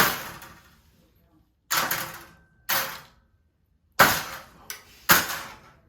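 About six hard blows struck on a thin panel from a disassembled LCD TV, irregularly spaced, each a sharp crack with a short ringing decay; the panel does not break.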